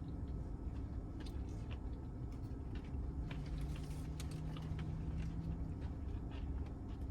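Eating sounds: chewing with scattered small clicks over a steady low rumble, and a low hum that comes in for a couple of seconds midway.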